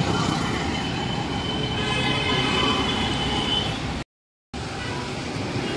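Road traffic noise heard from a vehicle moving along a busy road: a steady rumble with a thin high tone over the first three seconds or so. The sound cuts out completely for about half a second a little after four seconds, then the traffic noise resumes.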